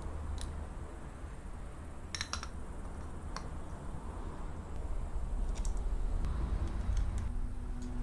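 Scattered light metallic clicks and taps of a small oil pump cover being handled and fitted by hand onto a motorcycle engine's oil pump, over a steady low hum.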